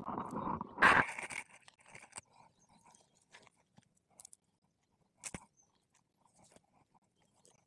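Nylon cast net being handled as fish are picked out of it: a dense crunchy rustle for the first second and a half, then faint scattered rustles and clicks, with one sharp tap about five seconds in.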